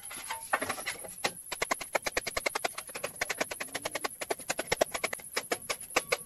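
Rapid, even hammer taps on a steel sheet, about six a second, as the sheet is beaten over to fold it.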